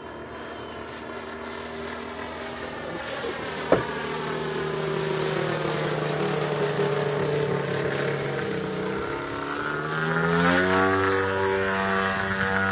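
Engine and propeller of a 33% scale Sukhoi Su-29 model aerobatic plane in flight, a steady buzzing note that sags a little, then climbs sharply in pitch and grows louder about nine to eleven seconds in. A single sharp click sounds near the four-second mark.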